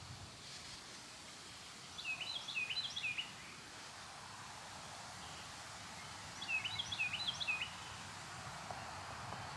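A songbird sings two short phrases of quick, hooked chirping notes, about four seconds apart, over the steady hiss of a breeze through trees.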